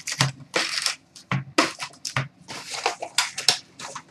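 Sealed hockey card packs crinkling and rustling in quick, irregular bursts as they are handled and laid out on a glass counter.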